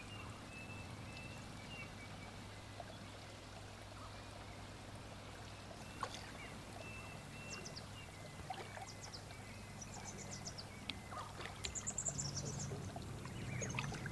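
Faint water trickling and dripping, with scattered small drips and splashes that come more often near the end, over a low steady hum.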